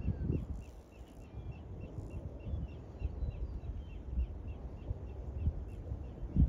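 A bird chirping over and over, about three short chirps a second, over low rumbling and thumps. It is an agitated bird that seems to be guarding eggs nearby.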